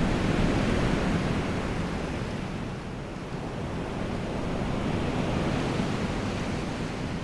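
Steady rushing of whitewater river rapids, a full, even noise of moving water.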